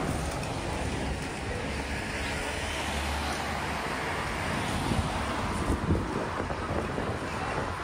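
A passing vehicle's low rumble over steady street noise, easing off about halfway through, with a couple of short knocks a little later.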